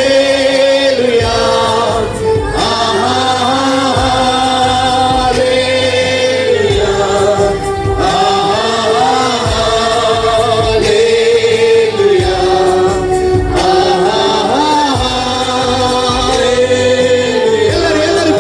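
Gospel worship music: a group of voices singing long, held, slowly gliding notes over steady instrumental accompaniment.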